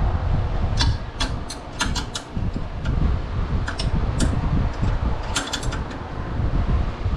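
Ratchet wrench clicking in short irregular runs as a just-loosened bolt, which he took for a 12, is backed out, over a low rumble.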